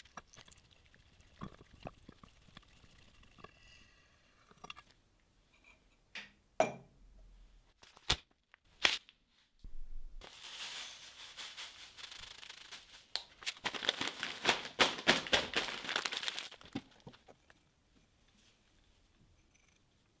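A few sharp knocks, then several seconds of dry rustling and rattling, loudest near the end: loose dry yerba mate being handled and shaken in a ceramic gourd.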